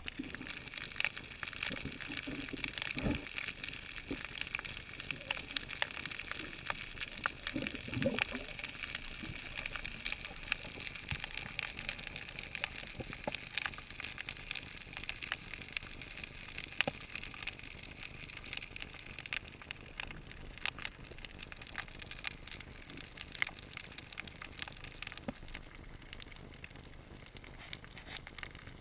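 Underwater ambience over a coral reef, heard through the camera's waterproof housing: a steady crackle of many small clicks over a low hiss, with a couple of low gurgling sounds around three and eight seconds in.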